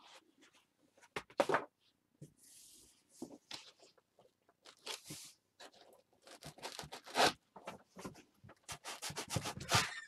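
White foam packing inserts rubbing and scraping against the cardboard box as they are worked loose, in irregular scrapes and rustles, the loudest about seven seconds in and near the end.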